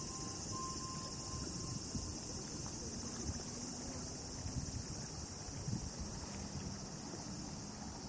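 Steady high-pitched chorus of crickets trilling. A faint thin tone is heard for the first couple of seconds, and there is a faint low hum underneath.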